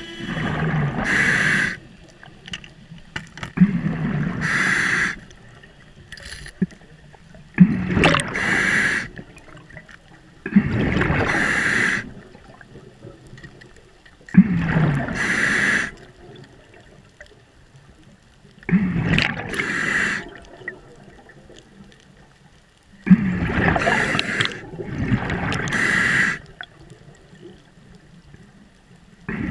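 Scuba diver breathing through a regulator underwater: hissing inhalations and bubbly exhalations in loud bursts of about a second each, one every few seconds, with quiet between.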